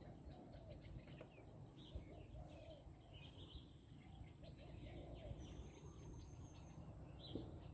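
Near silence: quiet open-air ambience with faint, scattered bird chirps and calls throughout.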